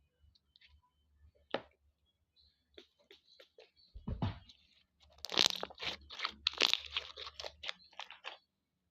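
Slime being squeezed and pressed by hand, giving scattered clicks, a low thump about four seconds in, then a dense run of crackles and pops for the last few seconds.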